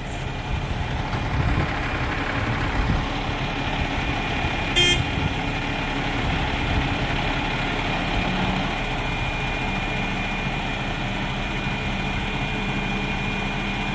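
Crane truck engine running with the PTO engaged, driving the hydraulics as the boom swings left, with a short beep about five seconds in and a steadier low engine tone setting in later.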